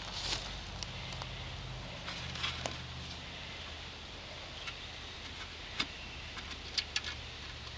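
Quiet outdoor background: a low steady hum with a few faint, brief clicks scattered through it.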